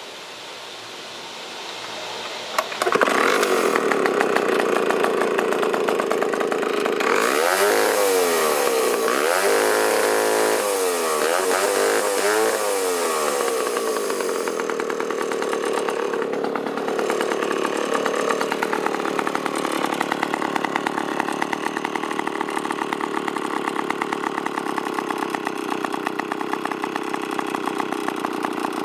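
A vintage 1951–1953 IEL HA/HB 85 cc two-stroke chainsaw engine starts about three seconds in. It is revved up and down about three times, then settles into a steady idle, running nicely.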